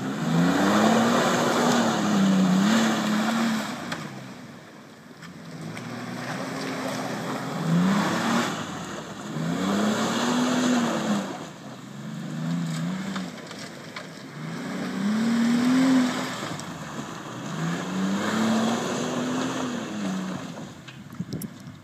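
Ford Explorer's engine revving hard in about six surges, its pitch climbing and falling with each, while the wheels spin and churn through mud.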